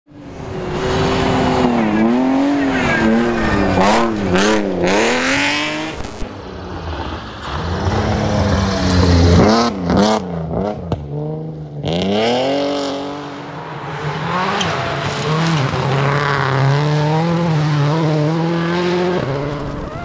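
Rally car engines at full throttle, the revs rising and falling rapidly through gear changes and lifts, in several short clips one after another, with a few sharp cracks among them.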